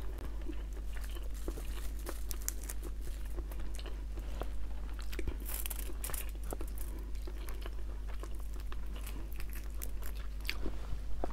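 Close-up mouth sounds of chewing, mixed with the small crackles of whole cooked shrimp shells being peeled by hand. A scatter of short clicks and crunches, with a brief denser crackle about halfway through.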